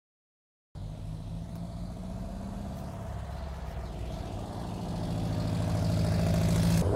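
Classic Volkswagen Beetle's air-cooled flat-four engine running at a low, steady speed as the car drives slowly past close by, growing louder as it comes nearer. The sound starts abruptly about a second in and cuts off just before the end.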